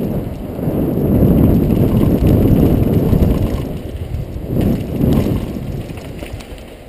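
Downhill mountain bike riding fast on a dirt and gravel trail: wind buffeting a helmet-mounted camera's microphone as a rough, rushing rumble, with tyre roar and the bike rattling over the ground, and a couple of sharper jolts about four and a half and five seconds in.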